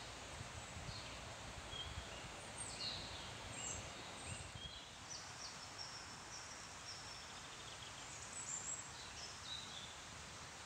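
Songbirds chirping and trilling in short, high phrases, several overlapping, over a steady hiss of rustling leaves in the wind.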